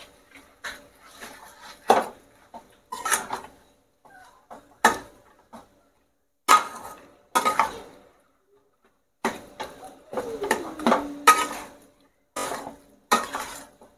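Flat steel spatula scraping and knocking against a stainless steel kadai in irregular strokes, with brief metallic rings, as mashed potato is worked into the spice masala. There is a short pause a little past halfway.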